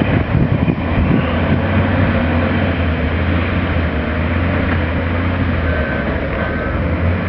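Heavy diesel machinery running steadily during bucket loading of a coal train: a constant low engine drone under a dense mechanical rumble.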